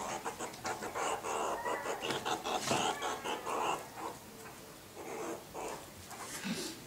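Meerkats chirping and chattering close to the microphone: a dense run of short calls that thins out after about four seconds.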